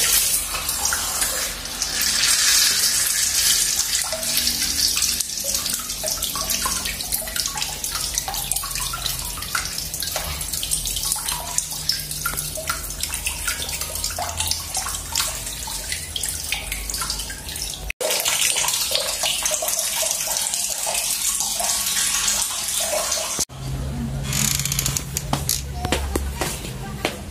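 Water running from a wall tap into a rubber balloon held on the spout and splashing into a bucket below, a steady rushing noise. It cuts off abruptly twice, about eighteen and twenty-three seconds in.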